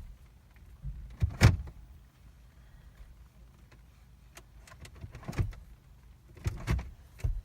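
A Jeep's automatic gear selector being shifted from drive back to park, clunking and clicking through its detents: the loudest clunk about one and a half seconds in, another around five seconds, and a few more near the end. The shifting is done to get the park/neutral interlock to register park so the engine will crank.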